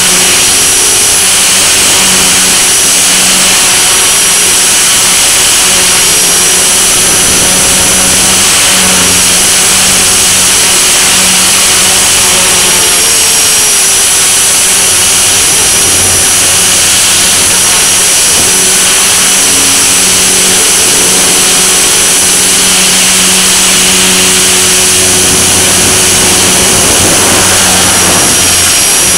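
Blade mCP X BL micro RC helicopter in flight, its brushless motors and rotors making a loud, steady whine with high tones that waver slightly, heard through a camera mounted on the helicopter.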